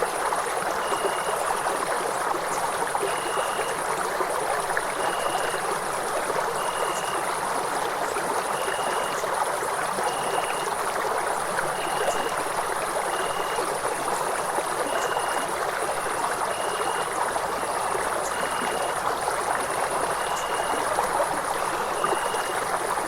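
Night ambience: a stream running steadily, with a high, almost continuous trill and a short high chirp repeating every second or two over it.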